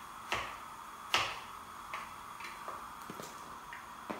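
Knife chopping potato on a cutting board: irregular taps, the two firmest in the first second or so, then softer, lighter cuts.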